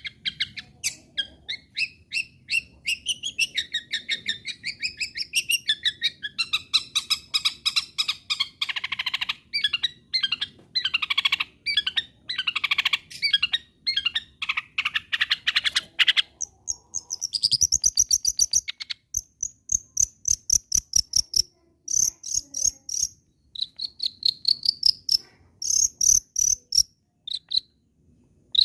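Long-tailed shrike singing a fast, varied run of chirps and warbles. About two-thirds of the way through, the song switches to short, high, buzzy trills repeated in groups, sounding like a cricket.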